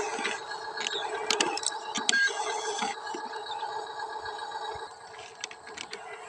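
Small electric motors and gearboxes of a radio-controlled toy construction machine, whining steadily with sharp clicks and scrapes for the first three seconds, then running quieter.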